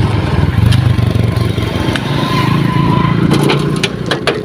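A nearby engine running steadily with a deep, even hum, and a few sharp knocks or clanks near the end.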